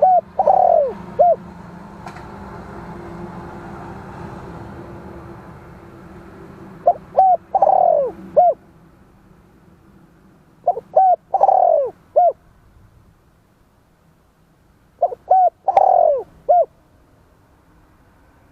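Spotted dove cooing: the same phrase comes four times, every four to seven seconds. Each phrase is a few short coos, then a long coo that falls in pitch, ending on one short coo.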